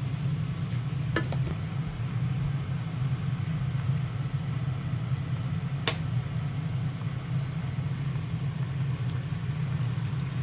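Beef-and-pork mince frying in a pan, a steady sizzle over a low hum, with a few sharp clicks of a utensil against the pan, a pair about a second in and one about six seconds in.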